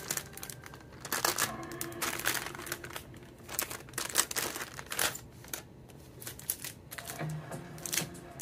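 Crinkling and rustling of paper and plastic wrap as gloved hands handle a wrapped sublimation tumbler, in irregular clusters of crackles with a quieter stretch near the end.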